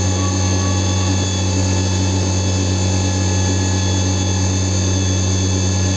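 CNC milling machine running: a steady hum with several steady whining tones above it.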